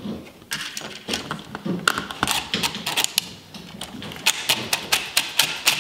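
Cordless impact driver turning the screw of a cut-in electrical box, heard as a run of sharp clicks that become regular, about four a second, in the second half. The box's swing-out tab is not flipping down behind the drywall as the screw turns.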